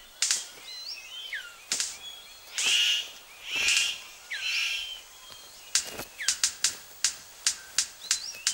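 Male superb bird of paradise courting a female: short high squeaky calls that swoop down in pitch and four short hissing bursts, then from about the middle a quick run of sharp clicks.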